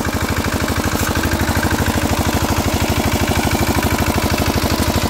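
Single-cylinder diesel engine of a two-wheel walking tractor running steadily with a rapid, even chug, heard from close behind it.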